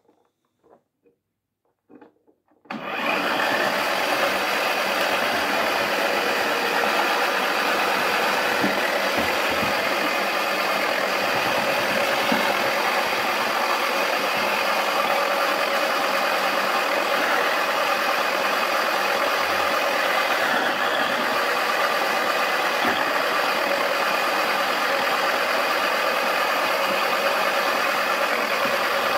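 Battery-powered toy washing machine switching on about three seconds in, its small motor and spinning drum whirring and rattling at a steady level, with a few light clicks.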